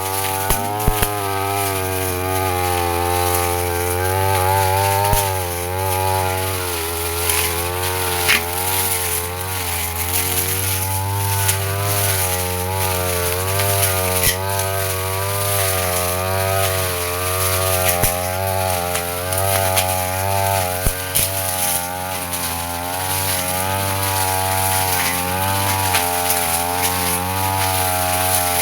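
Petrol brush cutter with a metal blade running at part throttle, its engine pitch wavering up and down as it cuts through grass and brush, with occasional sharp clicks.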